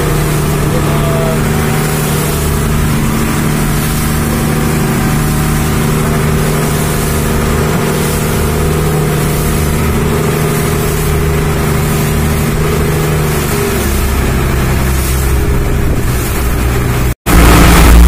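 Engine of a wooden outrigger passenger boat running steadily under way, a loud, constant drone with the rush of water and wind. Its note shifts slightly lower about fourteen seconds in.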